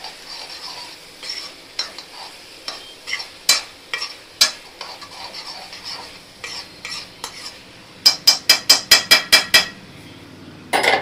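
A metal spoon stirring and scraping crumbled tofu around a metal kadai while it fries, with a steady sizzle under scattered scrapes. Near the end, the spoon knocks rapidly against the pan about ten times.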